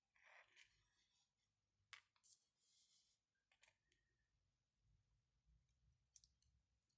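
Faint clicks and scrapes of small 3D-printed plastic parts of a mechanical counter being handled and fitted together, with tweezers picking at them. There is a scraping rustle at the start, single clicks around two and three and a half seconds in, and a quick run of clicks near the end.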